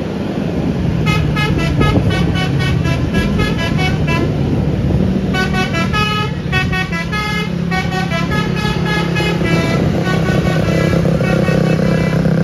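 Basuri telolet multi-tone bus horn playing quick runs of short notes that step up and down in pitch, in two phrases, the second starting about five seconds in. A bus engine hums steadily underneath.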